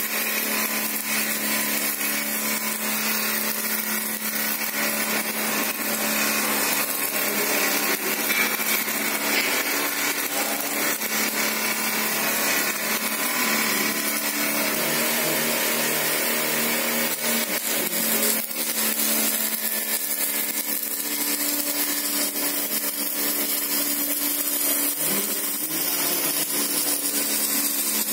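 A motor-driven machine running steadily, a continuous whirring hum with no breaks.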